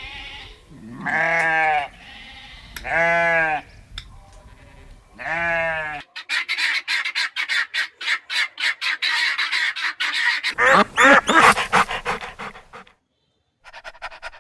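Three drawn-out bleats, about two seconds apart, from a goat or sheep, followed by several seconds of rapid, chattering poultry calls. A brief silence falls just before the end.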